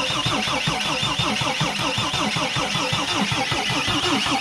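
Mercedes Sprinter 2.7-litre five-cylinder diesel being cranked on the starter in quick even pulses, turning over without catching. Air bubbles are showing at the injector lines after the fuel pump replacement, so fuel is not yet reaching the engine properly.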